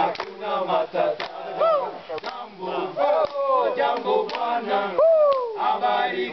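A group of Tanzanian porters singing together unaccompanied, men's voices in a call-and-chorus style, with pitches sliding up and down. A sharp beat marks time about once a second.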